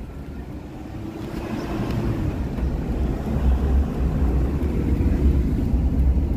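A car driving: a steady low engine and road rumble that grows louder over the first few seconds.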